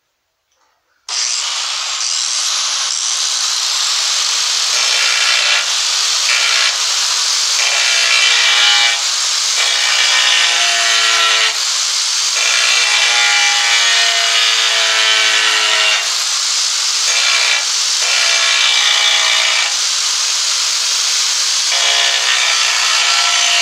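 Angle grinder fitted with an abrasive grinding wheel, switched on about a second in and grinding down the back edge of a ceramic tile to a 45-degree bevel. The motor's whine dips and recovers again and again as the wheel is pressed into the tile.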